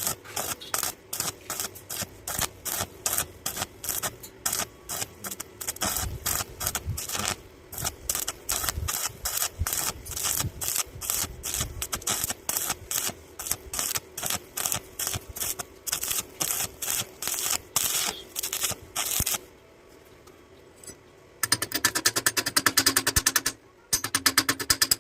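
Rhythmic back-and-forth scraping strokes of a hand tool on metal, about four a second, stopping near the end. A fast, even musical beat follows.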